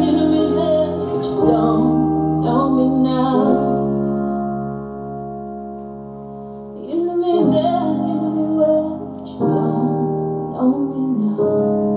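Pop song with a female singer over sustained keyboard chords, played loud through a home mini hi-fi system's speakers. The singing pauses for a few seconds midway while the chords hold softer, then comes back in.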